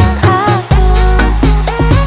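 Electronic dance-pop music with a steady beat, heavy bass and a sung melody.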